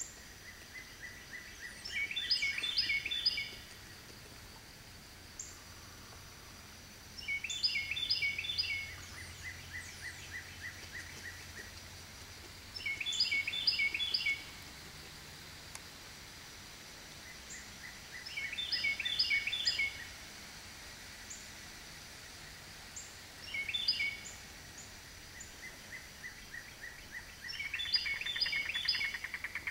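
A songbird sings the same short phrase of quick, high notes about every five seconds, six times. Between the songs there are runs of fainter, lower, evenly spaced notes.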